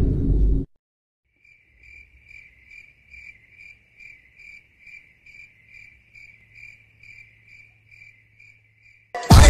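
Crickets chirping, an evenly pulsed high chirp at about two and a half chirps a second that sets a night-time mood, starting after loud music cuts off about half a second in and stopping just before the end.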